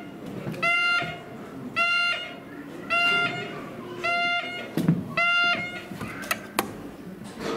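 A train car's passenger emergency call alarm sounding after the emergency button has been pressed: a buzzy electronic beep, about one a second, five times, then it stops. A couple of sharp clicks follow near the end.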